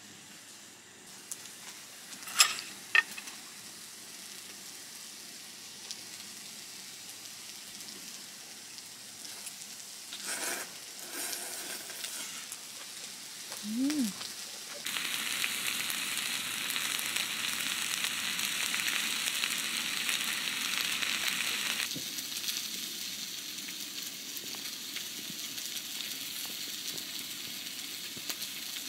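Food frying in a pan, with a loud sizzle for about seven seconds midway that then settles to a quieter, steady sizzle. Two sharp clicks come about two and three seconds in.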